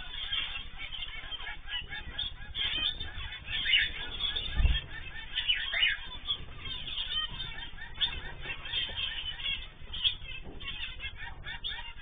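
Zebra finches calling over and over, short nasal honking calls from several birds overlapping. A single low thump about four and a half seconds in.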